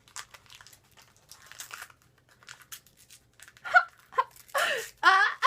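Paper wrapping being torn and crinkled as a small gift package is unwrapped by hand, in scattered short rustles. A woman's voice sounds break in near the end.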